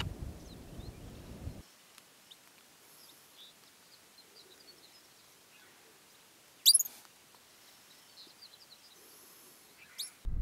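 A pika giving short, sharp, high-pitched calls: one loud call about two-thirds of the way in and a fainter one near the end, over faint scattered high chirps. At the start a low rumble of wind noise cuts off suddenly after about a second and a half.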